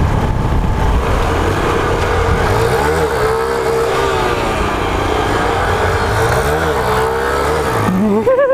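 Honda CG 125's single-cylinder four-stroke engine pulling hard under throttle while riding, its pitch rising and falling twice, with wind noise on the microphone. This is a wheelie attempt in which the front wheel does not lift.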